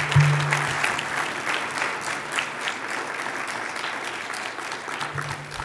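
Audience applauding: dense, steady clapping that eases off a little toward the end.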